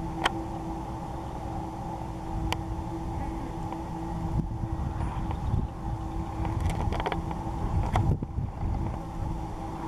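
Wind rumbling on the microphone, gusting stronger partway through, over a steady low hum, with a few sharp clicks and knocks of handling.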